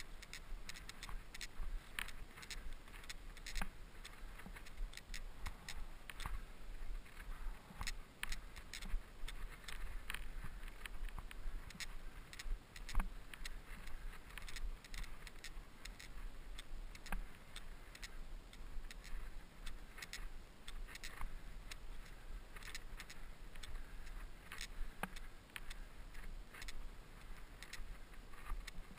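Mountain bike ridden over rough trail ground, its frame and chain rattling, with dense, irregular clicks and knocks over a steady low rumble.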